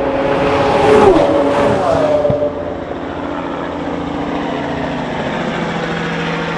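Porsche 911 Turbo and Lamborghini Aventador LP700-4 passing at speed under full throttle, their engine notes falling in pitch as they go by about a second in and dropping away at about two and a half seconds. A steady hum carries on underneath.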